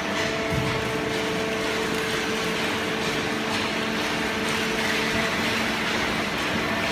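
Waste cardboard baler machine running: a steady mechanical hum with a few held whining tones over a constant noise.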